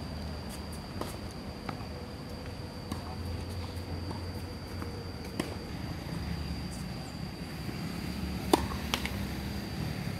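Tennis ball struck back and forth in a rally on a hard court: scattered sharp pops of racket hits and ball bounces a second or more apart, the loudest two close together near the end, about half a second apart.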